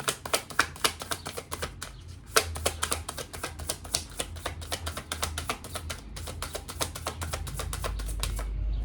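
Tarot cards being shuffled: a rapid, continuous run of card clicks that stops shortly before the end.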